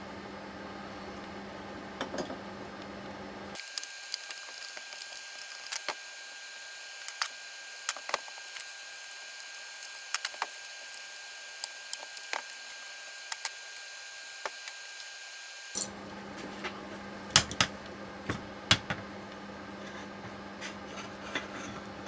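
Scattered sharp clicks and clinks of hand tools and metal steering-rack parts being handled during disassembly, over a steady low hum.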